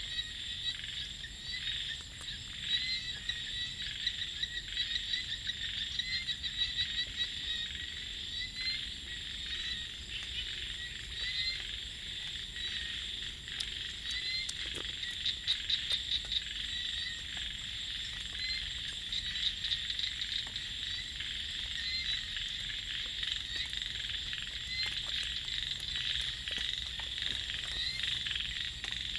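Dense chorus of small paddy frogs calling continuously, with repeated short chirping calls, over a steady high-pitched insect drone. A stretch of rapid pulsing calls comes about halfway through.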